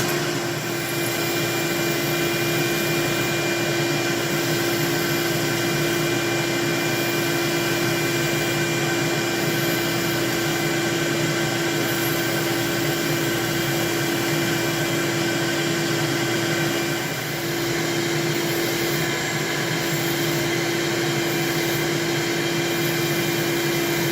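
An old furnace motor spinning a coarse sanding drum against the edge of a thick leather collar, with a shop vac drawing off the dust: a steady whine over a rushing hum, which dips briefly about 17 seconds in.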